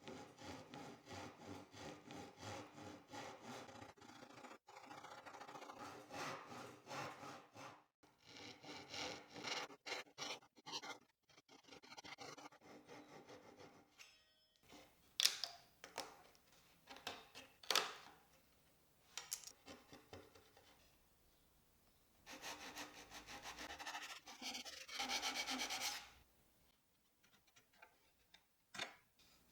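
Japanese hand saw cutting cedar, faint strokes in an even rhythm of about two a second, stopping and starting again, with a few sharp knocks during a pause.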